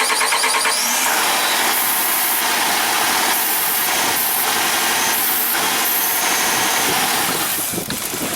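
A 2012 Jeep Grand Cherokee's 5.7-litre Hemi V8 is cranked by the starter and catches about a second in on brake cleaner sprayed into the intake. It runs for several seconds, then fades out near the end as the brake cleaner burns off. Starting on brake cleaner shows spark and compression are good, pointing to a fuel delivery fault behind the crank-no-start.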